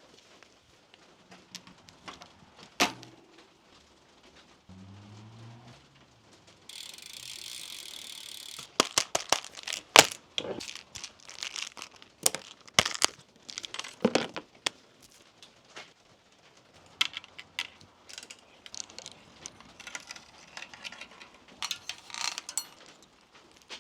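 Bicycle chain and drivetrain parts clicking and rattling as they are handled, with irregular metallic clatters that are busiest in the middle. About seven seconds in there is a steady hiss lasting about two seconds.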